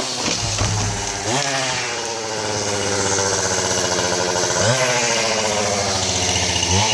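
Two-stroke chainsaw engine revving and dropping back toward idle between cuts. It falls to a low idle just after the start, is throttled up again about a second and a half in, dips briefly past the middle and revs up once more at the end.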